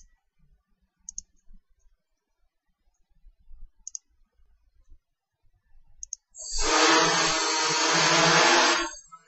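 A few faint clicks, then about six and a half seconds in the quadrotor's motors and propellers spin up and run loudly with a steady whirring hiss as it lifts off. The noise cuts off suddenly near the end.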